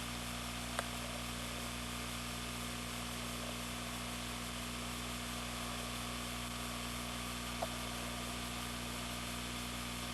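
Steady background hiss with a low hum underneath, broken only by two faint clicks, one about a second in and one near the end.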